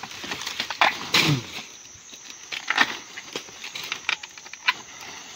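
Irregular rustling, crackling and snapping of wild banana plant leaves and stalk being pulled apart by hand, with a short falling voice sound about a second in.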